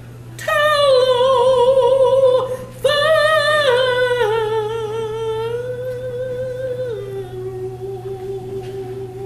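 A solo voice singing unaccompanied in long, wordless held notes with vibrato, stepping down in pitch near the end, over a steady low hum.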